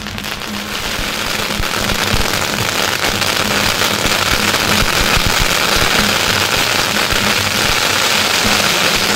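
Strings of firecrackers laid on the road going off in a continuous rapid crackle of countless small bangs, building over the first two seconds and then holding steady and loud.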